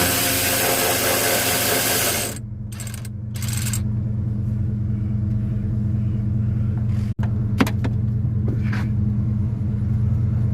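Steady low hum of a running engine, with a loud rushing hiss over the first two seconds and a few sharp clicks later on.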